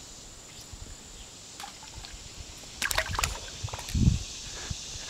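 A longear sunfish being let go over the side of a canoe: a few quick splashes about three seconds in and a low knock against the hull about a second later, over a steady high insect chorus.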